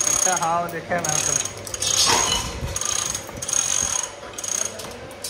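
A ratcheting mechanical tool running in about six short bursts, each carrying a high, thin whine over a clattering rattle.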